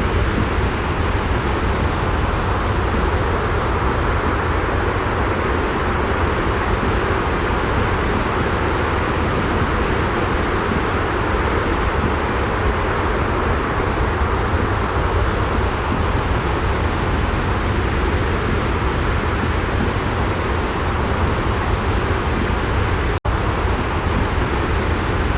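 Steady, unchanging rushing noise of a looped jet-engine white-noise track, with a deep low rumble under it. It cuts out for an instant about 23 seconds in, a splice in the loop, then carries on as before.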